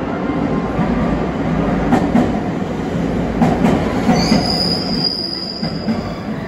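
521 series electric train pulling into the platform: a steady rumble with wheels clacking over rail joints, and a high squeal that starts about four seconds in and lasts nearly two seconds.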